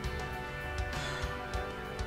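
Background music with held notes and a light beat.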